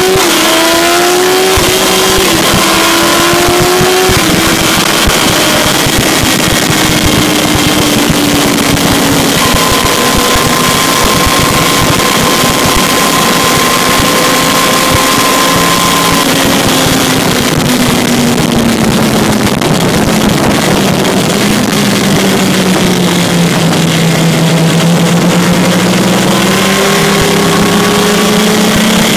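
Onboard sound of a Yamaha R1 sportbike's inline-four engine at speed, with heavy wind rush over the microphone. The engine note climbs at the start, sinks slowly through the middle, is lowest a few seconds before the end, then rises again.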